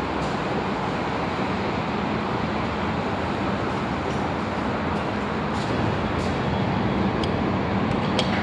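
Lift car travelling down its shaft on a long descent from the 30th storey: a steady rushing noise with a low hum, and a few faint clicks in the second half.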